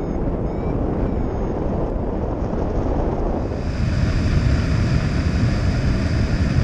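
Airflow rushing over the microphone of a camera mounted on a hang glider in flight. About three and a half seconds in the rush turns brighter and hissier, with a steady high whistle over it.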